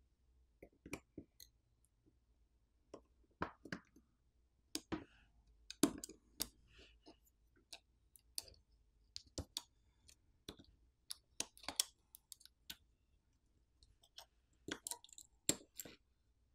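Irregular faint clicks and taps, a few at a time with pauses between, from a metal spudger and fingertips working inside an opened smartphone: connectors popping off and the main board being pried up and lifted out of the frame.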